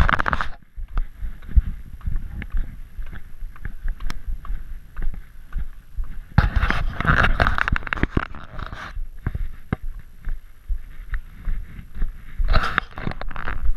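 Footsteps on a gritty paved trail, walking uphill, over a low rumble of wind and handling noise on the camera's microphone. A louder stretch of hissing noise comes about six seconds in and again near the end.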